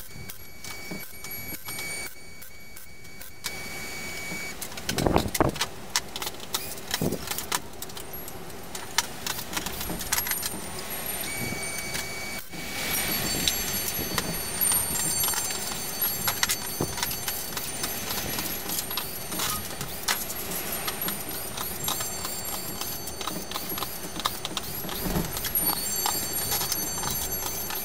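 Wire being handled and worked on a wooden workbench: irregular metallic clinks and taps over a steady hiss, with a couple of heavier knocks about five and seven seconds in.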